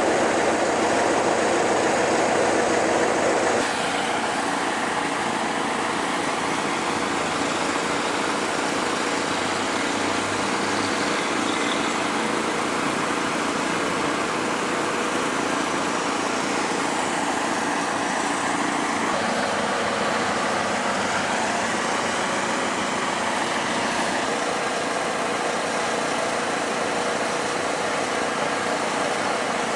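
Engine of a Ural truck-mounted crane running steadily at a constant speed while the crane works. It is a little quieter from about three and a half seconds in.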